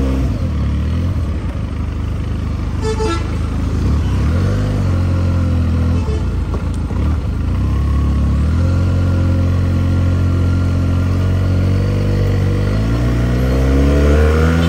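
Benelli 300 motorcycle's parallel-twin engine under way: the revs fall off near the start, rise and drop again around four to five seconds, hold steady, then climb as it accelerates near the end. A horn toots briefly about three seconds in.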